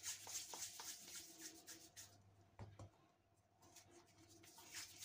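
Faint soft rubbing and rustling of floured hands pinching off and rolling pieces of soft dough into balls, with one soft knock about two and a half seconds in.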